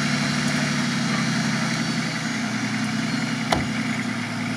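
Nissan Patrol off-road SUV's engine idling steadily, its note dipping slightly about two seconds in, with one sharp click about three and a half seconds in.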